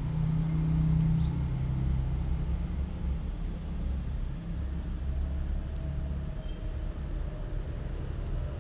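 Low, steady rumble of a motor vehicle engine running, loudest in the first two seconds.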